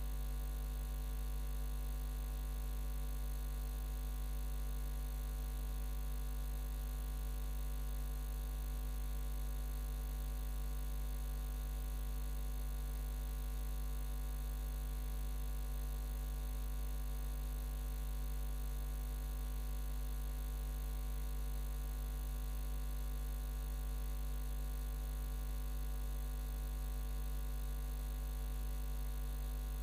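A steady, unchanging low hum and buzz made of several fixed tones, with no speech.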